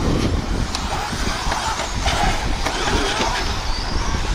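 Radio-controlled 1/10-scale truggies racing on a dirt off-road track, their motors whining up and down in pitch over a steady rush of noise, with a few short sharp clicks.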